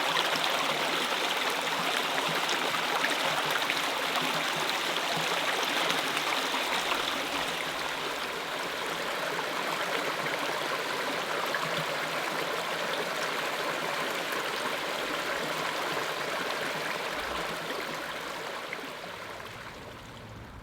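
Rushing stream water making a steady, even wash that fades out over the last few seconds.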